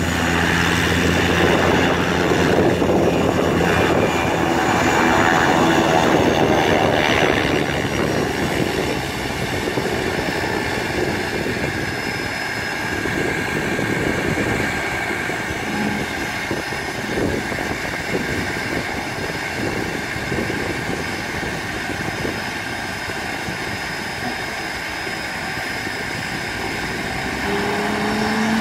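Agricultural aircraft's engine and propeller running on the ground, with a steady high whine. It is louder for the first several seconds, then settles to a steady idle.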